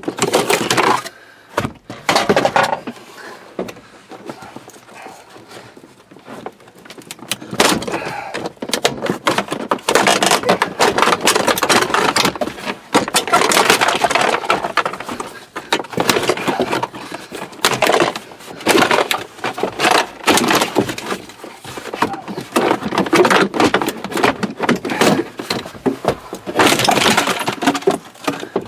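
Plastic dashboard trim being pried and ripped out by hand: a long run of cracks, snaps, knocks and clatter, in irregular bursts.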